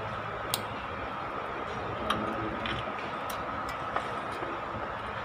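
A few short, sharp metallic clicks from hands working on the fuel injection lines of a stopped Kubota D950 diesel engine, over a steady background hum.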